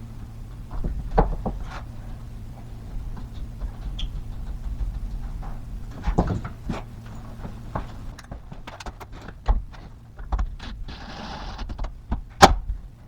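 Irregular clicks and knocks of tools and parts being handled during electrical conduit work, with a brief hiss just before a sharp, loud knock near the end.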